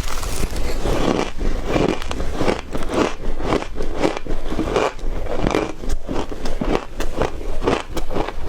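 A person biting and chewing shaved ice, a quick, irregular run of crunches close to the microphone.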